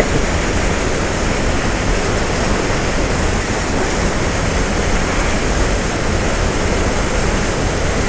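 Waterfall rushing: the steady, unbroken noise of falling water.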